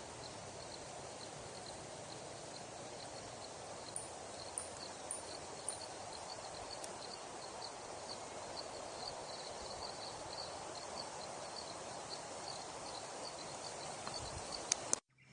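Outdoor nature ambience: a steady rushing background with a small creature, likely an insect, calling in a regular high tick about three times a second. A few faint high chirps come in the middle, and the sound cuts off abruptly near the end.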